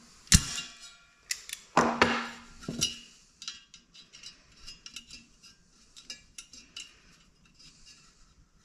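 Sharp metallic clanks and clinks of hand tools against the aluminium fan blade, hub and wire guard of a garage heater blower fan, as a very tight set screw on the fan hub is worked on. A loud ringing clank comes near the start and a few more follow over the next two seconds, then lighter clicks and taps.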